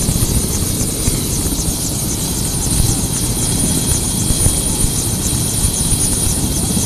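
Bell 407 helicopter running on the ground with its main rotor turning: a steady high turbine whine over the fast chop of the blades.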